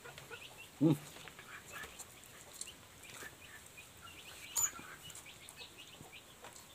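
A chicken clucks once, loudly, about a second in. Faint, short, high chirps of small birds are scattered throughout.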